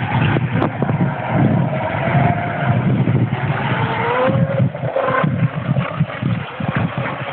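Electric RC speedboat's brushless motor (Leopard 3674, 2200 kV) whining as the boat speeds away across the water, its pitch gliding and rising with the throttle about halfway through. A gusty rumble of wind on the microphone is louder than the motor.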